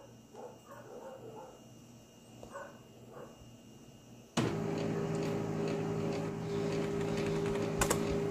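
Quiet room tone. About four seconds in, a steady mechanical hum with a low drone starts abruptly: the running desktop computer's fans and drive. A short click comes near the end.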